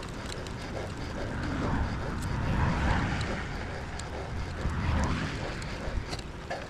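Wind rushing over the microphone while cycling, swelling louder about three seconds in and again near five seconds.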